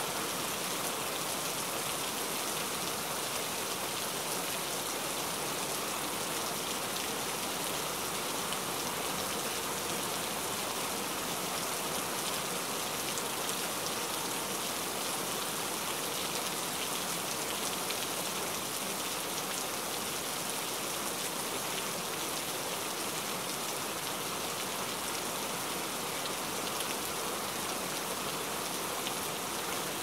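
Steady rain falling on a flooded paved surface, drops splashing into standing water, at an even level throughout.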